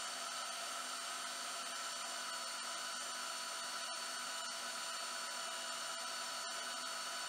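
Vevor portable metal-cutting bandsaw running steadily through a thick block of solid steel: an even motor whine over the hiss of the blade in the cut, with a few faint ticks.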